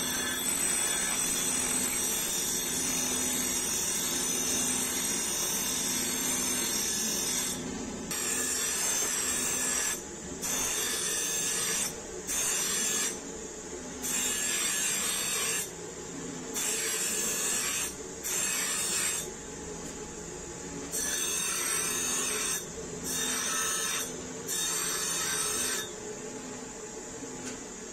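Abrasive scraping of the steel blank of a forged fishtail gouge being shaped. It runs unbroken for the first seven seconds or so, then comes as repeated strokes of about a second each with short breaks between.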